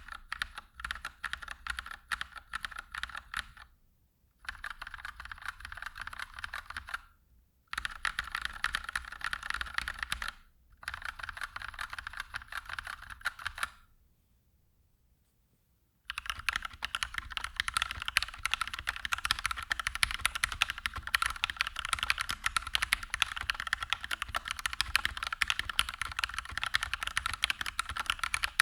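Typing on a mechanical keyboard with HK Gaming Pro Sky Blue 62 g linear switches and PBT double-shot keycaps. It comes in four runs of about three seconds with short breaks between them, then after a two-second pause, fast continuous typing for the rest.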